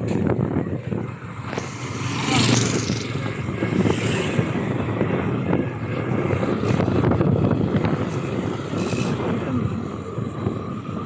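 Motorcycle engine running while riding at low speed, heard from on the bike, mixed with road noise and irregular wind rumble on the microphone.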